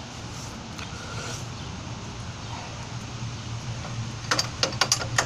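Hand tools clinking on motorcycle parts: a quick run of sharp metallic clicks and knocks about four seconds in, over a steady low motor hum.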